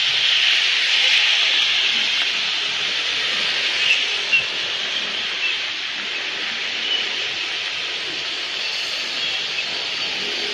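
Steady hiss of rain and tyres on a wet city street, with two small ticks about four seconds in.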